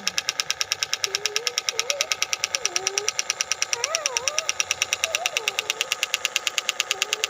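Homemade plywood miniature Dongfeng diesel engine model running, its mechanism knocking in a rapid, even rhythm of about ten knocks a second like a single-cylinder diesel.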